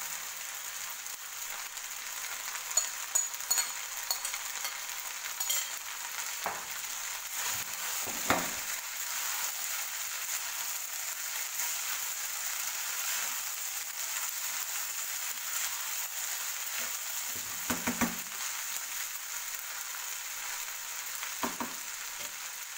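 Fried rice sizzling steadily in a frying pan over high heat while a wooden spatula stirs and tosses it, with a few dull knocks of the spatula against the pan.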